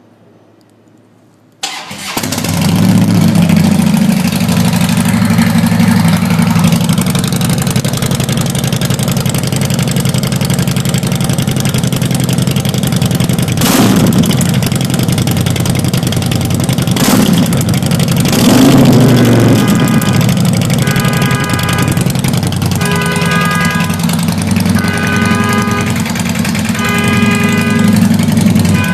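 Custom 1600 cc Harley-Davidson V-twin motorcycle engine starting about two seconds in, then running loud and steady.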